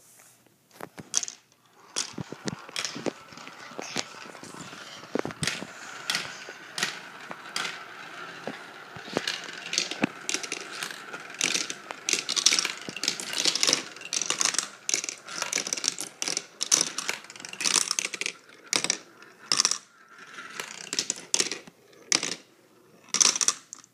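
Marbles rolling and clattering through a clear plastic marble run: a quick string of sharp clicks and knocks as they drop and hit the tubes. A steady rolling whir runs under the clicks through the first half or so.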